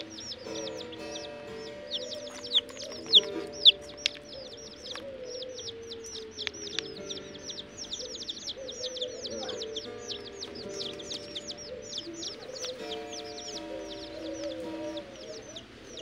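A flock of young chicks peeping constantly, each peep a quick high note sliding downward, with a few louder peeps close by about three seconds in. Background music with steady held notes plays underneath.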